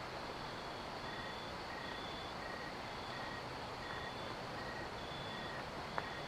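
Outdoor night ambience: a steady hiss with a faint, evenly repeating high chirp or beep, about three every two seconds, and a single sharp click near the end.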